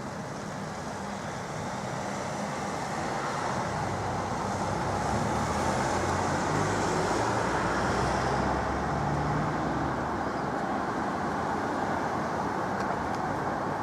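City road traffic: a steady hum of vehicles that swells in the middle as a vehicle passes close, then eases off a little.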